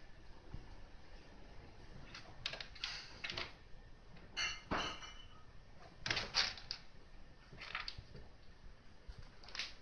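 A cat moving about in and over a litter box of pellet litter inside a wire cage: a string of short rattles and clinks of shifting pellets and the cage wire, the loudest about six seconds in.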